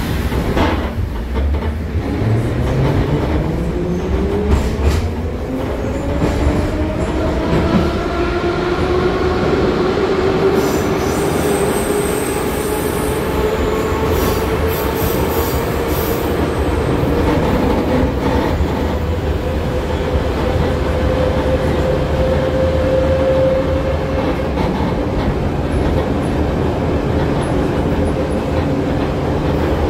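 Moscow metro train pulling away and picking up speed: the traction motors' whine rises steadily in pitch for about fifteen seconds, then holds level, over a constant rumble of wheels on rail.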